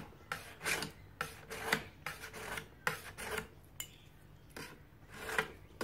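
A sharpening stone is stroked along a knife edge held in a clamped guided sharpener, in quick, even scraping strokes of about three a second, with a short pause about two-thirds of the way through. This is the fine-grit refining stage, where the edge is being polished smooth and the last small gouges are worked out.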